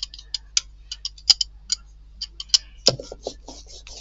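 Paint brayer rolling acrylic paint thin over a gel printing plate, the tacky paint giving a quick, irregular crackle of sticky clicks, with one heavier knock about three seconds in.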